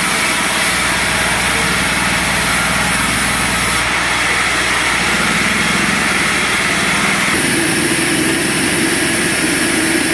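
Sawmill machinery running steadily with a loud engine-like drone and hiss; its tone shifts about seven seconds in.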